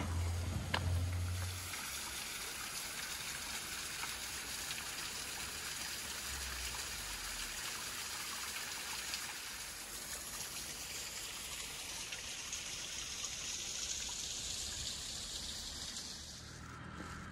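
Small waterfall trickling and splashing down a rock face into a pool, a steady water sound that fades near the end. A short low rumble and a light click come at the very start.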